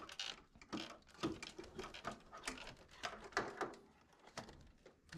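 Irregular clicks and knocks of parts and tools being handled while a washing machine is reassembled.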